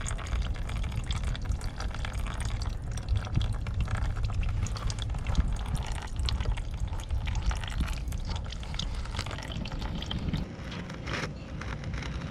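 Old engine oil draining from the Onan RV QG 4000 generator's drain opening into a catch pan, trickling and dripping in many small irregular ticks over a steady low rumble.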